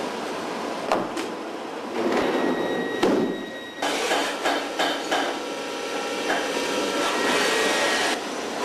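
CNC machining centre at work on a metal part. A few sharp metal knocks come in the first seconds, then from about four seconds in there is a steady machining sound: a hiss with a thin, even whine running through it as the tool cuts.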